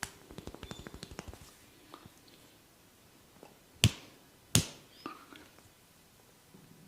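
Barber's hands working a client's head in a massage: a quick run of about a dozen small pops in the first second and a half, then two loud sharp cracks about three-quarters of a second apart.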